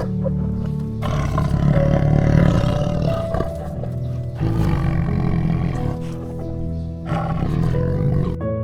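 Three long, rough calls from a large animal, heard over background music with sustained notes.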